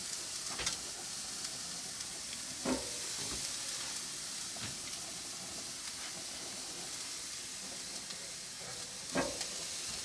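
Pork chops and eggplant slices sizzling on a red-hot grill: a steady hiss, with a few short clicks through it.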